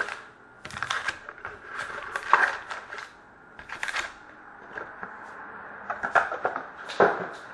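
Sealed trading card packs being handled and set down in piles on a glass tabletop, with their wrappers crinkling and packs tapping the glass in irregular clusters of crisp clicks. The cardboard box is shifted about and lifted away near the end.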